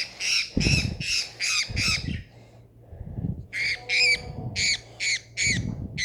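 A parrot squawking over and over in short harsh calls, about three a second, while it is being held after being caught. The calls stop for about a second and a half midway, then start again.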